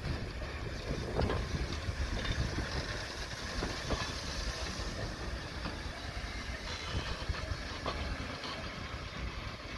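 Vintage railway carriages rolling past at low speed: a steady rumble of wheels on rail, with a few irregular clicks as the wheels cross rail joints.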